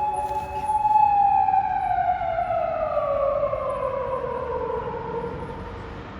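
Police patrol car siren holding its top pitch, then falling slowly in pitch and fading over several seconds.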